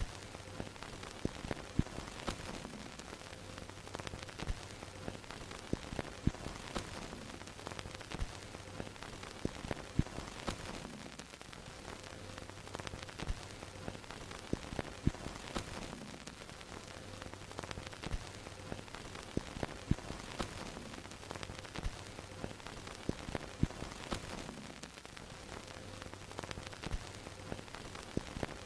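Vintage film projector sound effect: steady hiss with frequent irregular crackles and pops, like dust and scratches on old film, over a low hum that comes and goes every few seconds.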